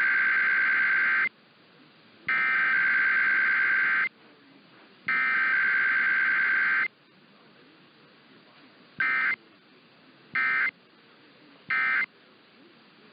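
Emergency Alert System SAME digital data tones: the header sent three times as bursts of nearly two seconds each, about a second apart, then three short end-of-message bursts. This is a weekly test sent as data only, with no attention tone or voice message.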